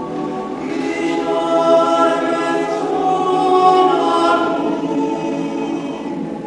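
Male choir singing a cappella in several parts, holding sustained chords that swell louder in the middle and ease off toward the end.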